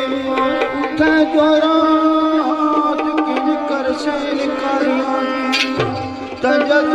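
Instrumental passage of South Asian folk music: a melody line that glides between notes over a held drone, with hand-drum strokes throughout. The music thins for a moment near the end, then comes back in full.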